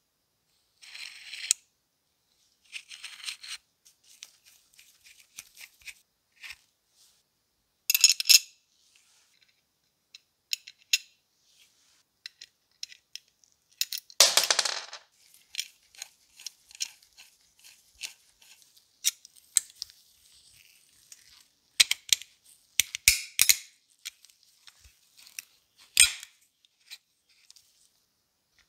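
Small metal parts of a gumball machine's coin mechanism clicking and clinking as they are handled and taken apart with tweezers. About halfway through, a small metal part drops and rattles on the wooden tabletop, the loudest sound.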